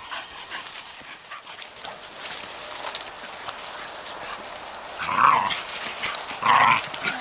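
Two dogs at rough play, paws scuffing and rustling over dry forest litter, then two loud short barks about five and six and a half seconds in.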